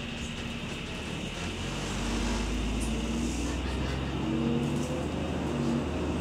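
Double-decker bus heard from inside: a steady whine from the cooling fan, then from about a second in the engine builds to a deep rumble, its note climbing in steps as the bus accelerates.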